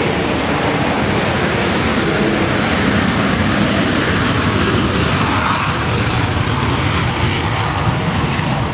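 Aircraft engines running loudly and steadily as the aircraft taxis, an even rushing drone.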